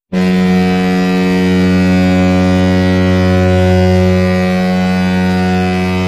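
San Jose Sharks' goal horn blasting one long, low, steady note, starting abruptly.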